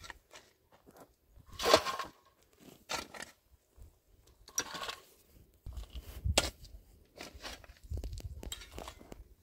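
A series of separate short knocks, clinks and scrapes of objects being handled. The loudest is a brief scrape a little under two seconds in, and there is some low rumbling in the second half.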